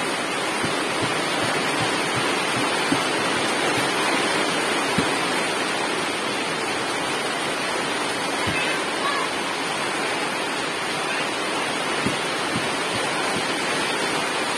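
Heavy tropical rain falling steadily, a constant hiss of rain on grass, leaves and puddled ground, with a few soft dull taps now and then.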